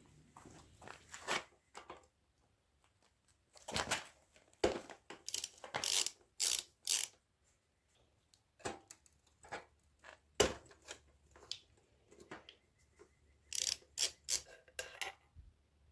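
Irregular mechanical clicks and clanks, with ratchet-like clicking, in short groups.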